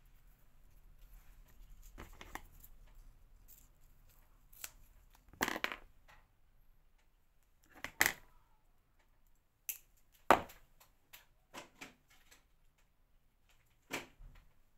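Craft materials and small tools handled on a worktable: scattered rustles and a few sharper knocks and clicks, spread through the stretch with quiet gaps between them.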